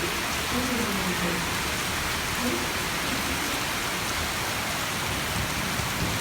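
Heavy rain falling steadily, a dense, even hiss of rain on the street and surfaces.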